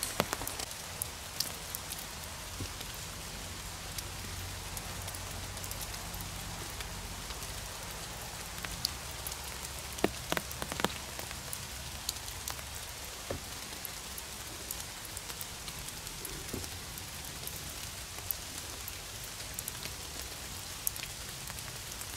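Steady rain falling on forest leaves. Sharp hits from single drops are scattered through it, with a few louder ones about ten seconds in.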